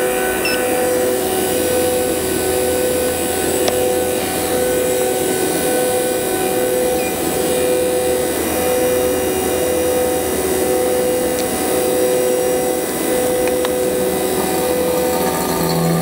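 Fieldpiece VP85 8 CFM DC-motor vacuum pumps running steadily under vacuum, a continuous motor hum with a pulsing tone in it, while one pump's oil is drained and changed without stopping it. A few light ticks sound over the hum.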